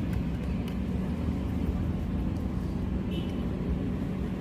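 Steady low background rumble, with a few faint small clicks of screws and laptop parts being handled.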